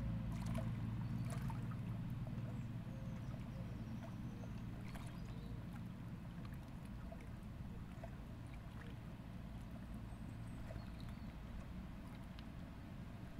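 A distant engine's low, steady hum, slowly fading, with a few faint high chirps and clicks over it.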